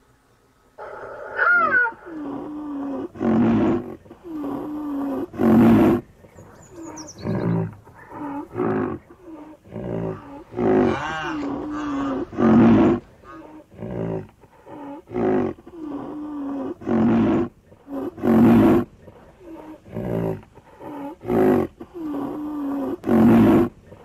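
Rhinoceros calling over and over, about one call every one to two seconds, a mix of deep grunting bellows and calls with a wavering pitched tone.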